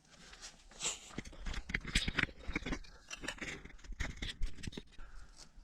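Irregular scraping and clicking from hands handling a steel tape measure and tools at a motorcycle's rear axle and swingarm.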